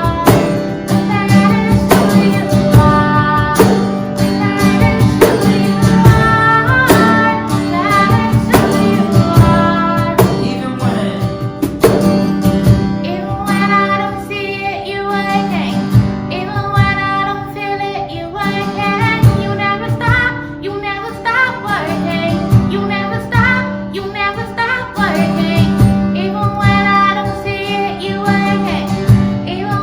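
Church worship band playing a contemporary worship song, a woman's lead vocal over guitar and a steady drum beat.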